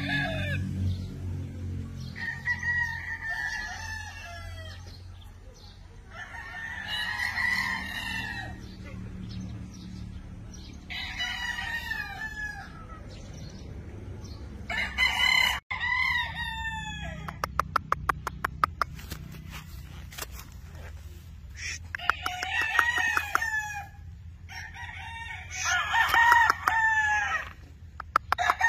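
Gamecock roosters crowing again and again, a crow every few seconds from several birds, some louder and some fainter. A fast run of sharp clicks lasts a few seconds a little past the middle.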